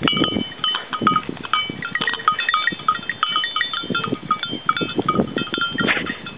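Small bells on the goats' collars ringing irregularly as the goats run, buck and jostle. Each short ring returns at the same few pitches, over low knocks and rustling from the moving animals.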